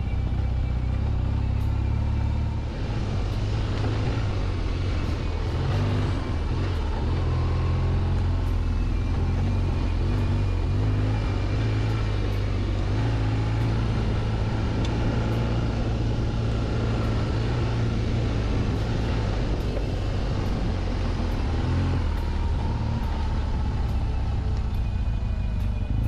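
BMW R1200GS boxer-twin engine running steadily as the motorcycle rides a dirt trail, its revs drifting a little, under a constant low rumble of wind on the microphone.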